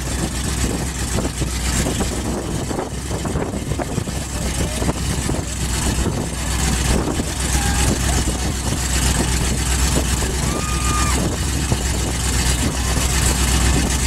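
Lifted mud-bog pickup's engine idling with a steady low rumble that grows a little louder toward the end, with faint voices in the background.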